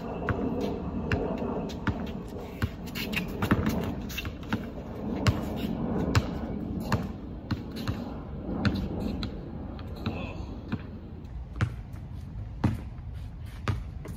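Basketball dribbled on an outdoor hard court: a run of sharp bounces, quick in places and more spaced out in others.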